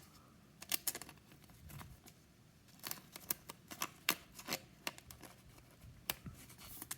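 A trading card being handled and slid into a plastic card sleeve: scattered soft clicks and rustles of card and plastic at irregular moments.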